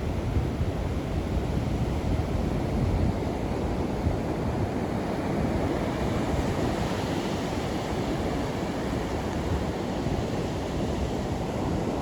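Surf washing steadily onto the shore, with wind rumbling on the microphone.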